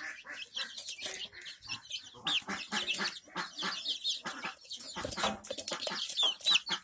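Young desi chickens feeding: a dense patter of quick beak pecks at grain, mixed with high, arching chirps and soft clucks.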